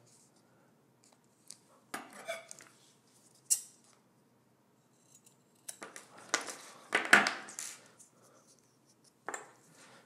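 Scissors cutting a short length of heat shrink tubing, with rustling of the tubing and a few scattered sharp clicks as it is handled.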